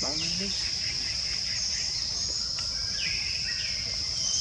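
Steady high-pitched drone of insects in the forest, with scattered short bird chirps and whistles over it.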